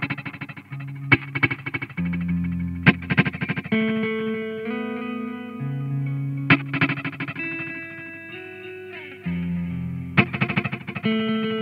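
Electric guitar playing slow, held chords through an Old Blood Noise Endeavors Dweller phase-repeater pedal. Each struck chord sets off a quick stuttering flurry of repeats, and the chords change every couple of seconds.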